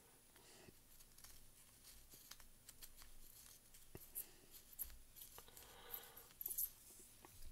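Faint small clicks and scrapes of needle-nose pliers working the metal pins of an IC socket on a small circuit board, busiest about four seconds in and again near the end.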